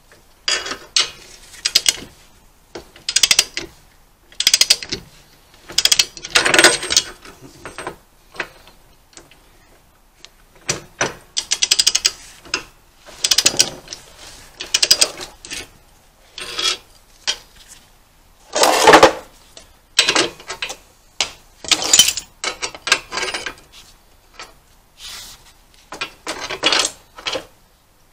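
Ratchet of a torque wrench clicking in short runs as the handle is swung back between pulls, tightening a car's rear drive axle nut. The runs come about every one to two seconds, with a pause of a few seconds in the first half.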